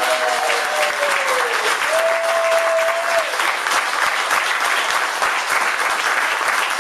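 Audience applauding, with dense clapping throughout. Voices in the crowd whoop over it: one long whoop sliding down in pitch ends early, and another held whoop comes at about two to three seconds in.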